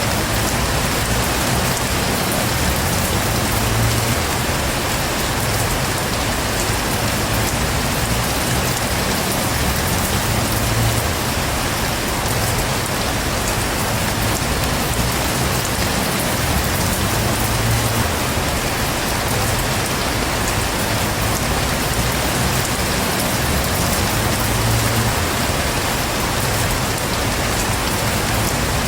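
Heavy rain falling steadily, a dense even hiss of rain striking surfaces. Under it, a low rumble swells and fades every several seconds.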